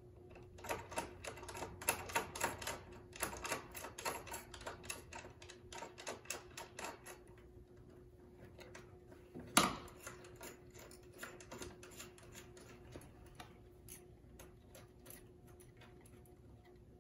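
Ratchet wrench clicking in quick runs as bolts are threaded in loosely, thinning to scattered clicks later, with one louder metal knock about ten seconds in.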